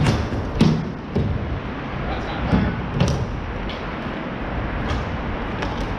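Ball hockey play: a handful of sharp knocks from sticks striking the ball and the ball hitting the rink boards, over steady background noise, with players' voices in the distance.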